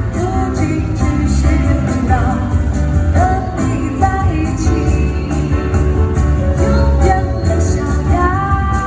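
Live jazz band music: bass and drums keep a steady beat under a wavering melody line, which settles into a long held note near the end.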